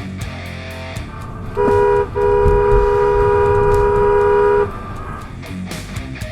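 Car horn honking: a short honk, then a held honk of about two and a half seconds, two close pitches sounding together, over rock guitar music.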